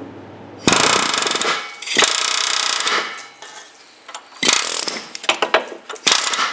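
Pneumatic air hammer chattering against rusted exhaust flange bolts to break the rust loose, in four short bursts of about a second each with pauses between.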